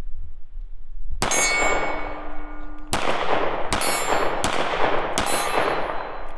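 Five shots from a Hi-Point C9 9mm pistol. The first comes about a second in, then there is a pause, then four more shots come quickly, each under a second apart. Each shot is followed by a long metallic ringing tail.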